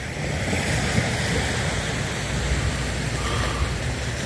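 Steady rushing noise of surf and wind, with an uneven low rumble from wind buffeting the phone's microphone.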